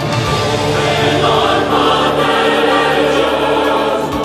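Music with a choir singing long held chords.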